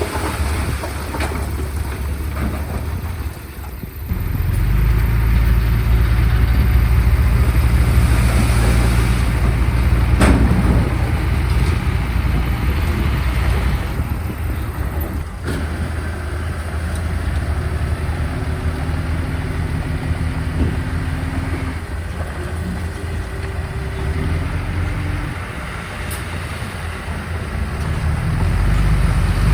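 Diesel engines of heavy earthmoving machinery running with a steady low drone. The drone grows louder about four seconds in and eases back after about twelve seconds. There are a couple of sharp knocks along the way.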